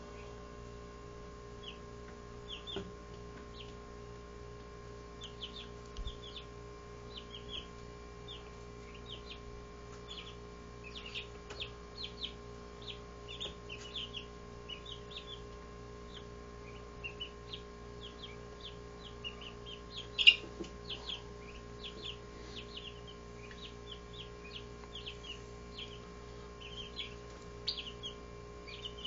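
17-day-old Barred Rock chicks peeping: short high chirps throughout, busiest in the middle, with one loud call about twenty seconds in. A steady low hum runs underneath.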